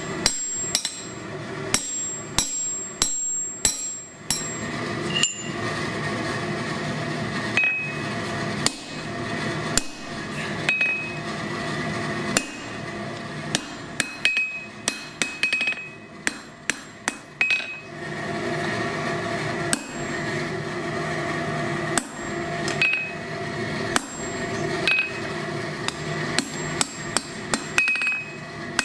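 Blacksmith's hand hammer striking a hot steel tong blank on an anvil in irregular runs of blows, some leaving a short bright ring from the anvil. A steady hum runs underneath.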